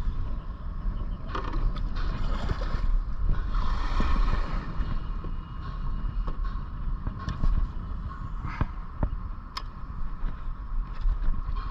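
Wind buffeting the microphone in a low, steady rumble, with scattered short scraping noises and a few sharp clicks on top.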